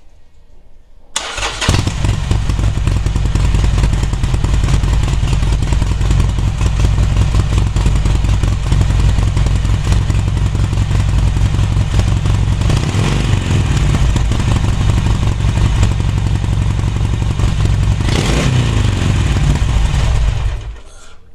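Harley-Davidson Sportster 1200's air-cooled V-twin starts about a second in and runs loudly through its newly fitted mufflers with a pulsing exhaust rumble. It makes a short burst near the end and shuts off just before the close.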